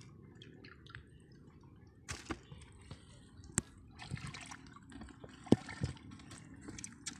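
Water dripping and splashing among freshly caught fish in a plastic tub, with a few sharp knocks, the loudest about five and a half seconds in.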